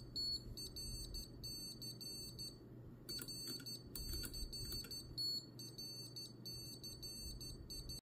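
Piezo buzzer of a standalone Morse code keyer beeping high-pitched dits and dahs as the paddles are worked, sending Morse letters such as C. There is a short pause about two and a half seconds in.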